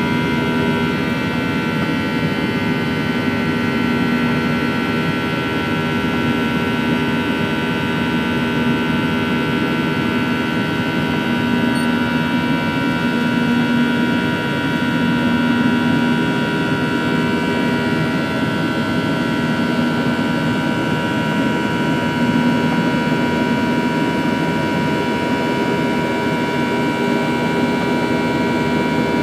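Boeing 737-900ER's CFM56-7B jet engines running steadily, heard from inside the passenger cabin: an even hum and rush of air with several steady whining tones on top.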